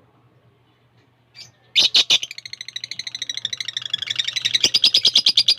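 Lovebird calling: after a quiet start, a few sharp, loud shrieks about two seconds in, then a rapid run of high chirps, about nine a second, growing louder.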